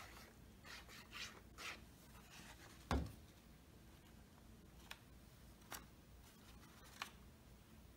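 Paper model pieces being handled and pressed together while glued: soft paper rustles in the first two seconds, a dull thud about three seconds in, then a few light clicks.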